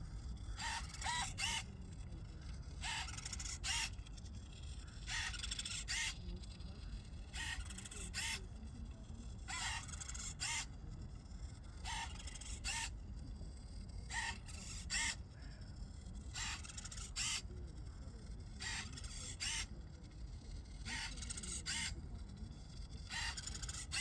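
Small servo motors of a 1:10 RC rowing boat whining in short pairs, one pair about every two seconds as the oars are pulled and swung back, over a low steady rumble.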